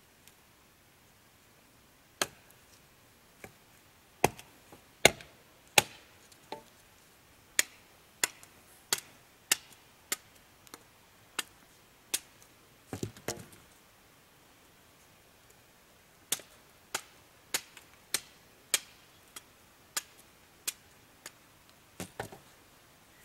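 Chopping: a blade striking wood in sharp, single strokes about every two-thirds of a second, with a pause of a few seconds midway.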